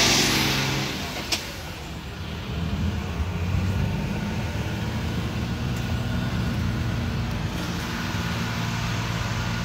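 Low, steady engine hum of heavy vehicles, a coach bus driving slowly on the snowy road, with a single sharp click about a second in.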